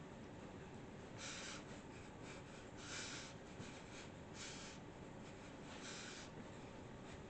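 Quiet room with a faint steady hiss and short, soft breathy puffs about every one and a half seconds from a person dancing.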